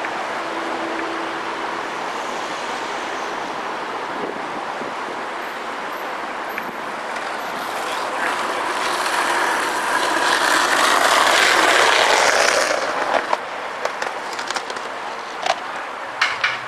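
A car passing on the street, its tyre and engine noise swelling from about eight seconds in, loudest around eleven to twelve seconds, then fading, over steady outdoor background noise. A few short sharp clicks come near the end.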